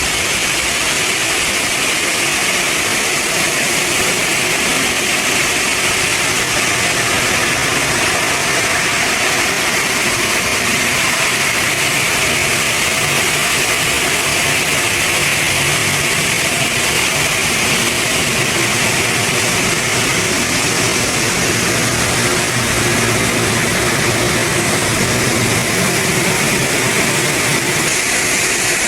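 Heavy machinery running steadily and loudly, a constant engine-like drone with a strong hiss and no breaks.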